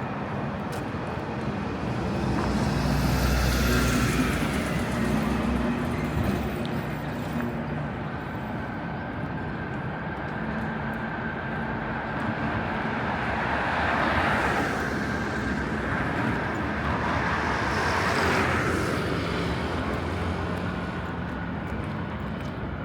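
Road traffic in a city street: a steady hum of motor vehicles, with individual vehicles passing, the loudest and deepest about three seconds in and two more about fourteen and eighteen seconds in.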